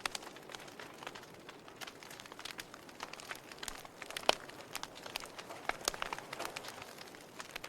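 Burning logs in a fireplace crackling: irregular sharp pops and snaps over a soft hiss, with the loudest pop a little past halfway.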